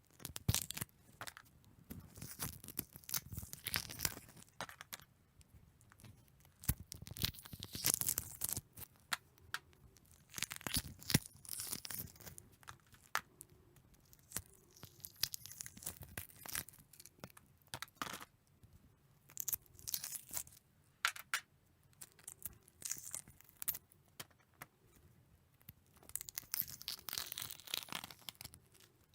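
Eggs frying in a pan: the fat crackles and spits in irregular bursts of sputtering, with quieter stretches between.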